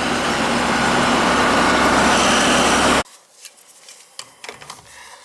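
Noise inside a moving vehicle's cab: engine and road noise with wind rushing through an open window. It cuts off suddenly about three seconds in, leaving faint clicks and knocks of pliers on a water shutoff valve.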